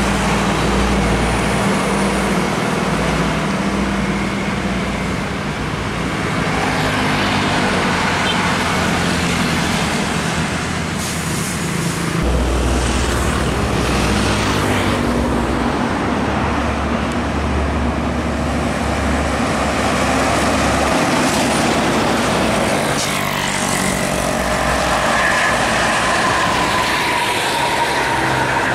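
Highway traffic driving past: diesel trucks, car carriers among them, with motorcycles and cars, engines running over steady tyre noise. A deeper truck engine drone comes in about twelve seconds in and drops away around twenty-one seconds.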